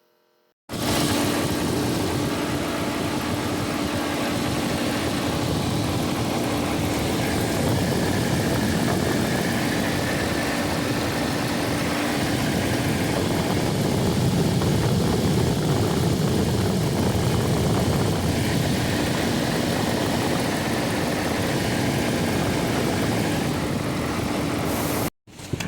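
Car engine running steadily, a low hum under a wide whirring hiss, cutting in suddenly about a second in and stopping abruptly near the end.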